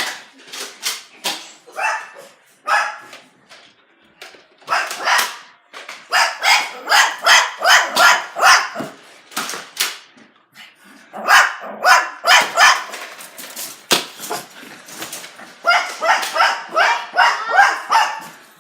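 A dog barking in repeated bouts of rapid barks, about four barks a second, with short pauses between bouts.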